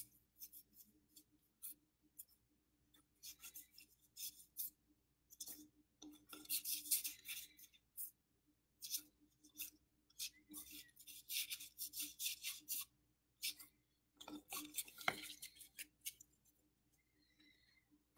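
Baseball trading cards being handled and slid across one another, an irregular run of short, scratchy swishes, with the busiest stretches about seven seconds in and again about fifteen seconds in.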